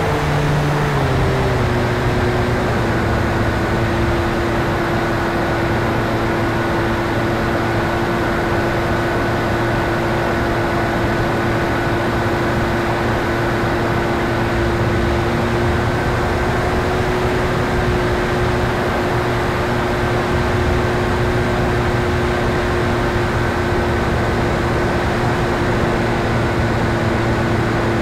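RC model plane's propeller and motor running steadily in flight, heard from an onboard camera, with rushing airflow over the microphone. The pitch drops a little about a second in as the throttle eases, then holds steady.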